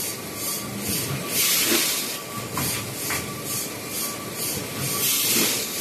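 Automatic vertical form-fill-seal packaging machine running: quick, evenly repeating hisses of compressed air from its pneumatic cylinders, with small clicks and a faint steady tone. Two longer hisses come about a second and a half in and near the end.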